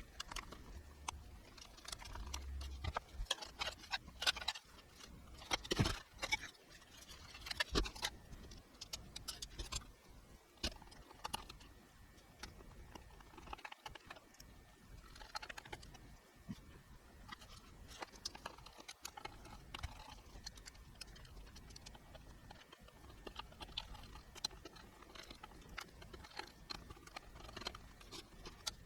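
Irregular small clicks, taps and rattles of hardware being handled, busier and louder in the first several seconds, over a low steady hum.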